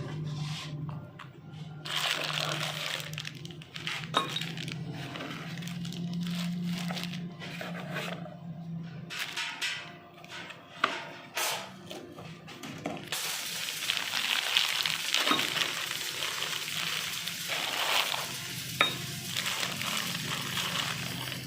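Metal tools and car parts clinking and knocking at irregular moments during work on a CV joint and axle shaft, over a steady low hum.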